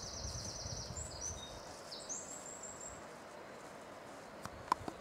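A small songbird singing high, fast trilled phrases for about the first three seconds, over a faint low rumble. A couple of sharp clicks near the end.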